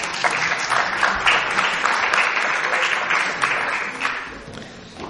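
Audience applauding, fading away about four seconds in.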